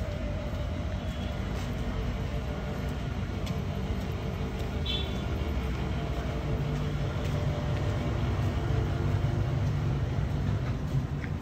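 Steady low engine rumble, growing a little stronger from about six seconds in, with a brief high chirp about five seconds in.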